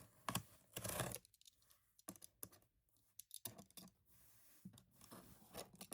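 Faint, irregular clicks, scratches and short rustles of a parcel's packaging being opened and handled by hand.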